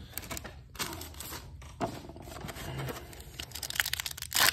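Trading-card booster pack wrapper rustling and crinkling in the hands, then a loud rip near the end as the pack is torn open.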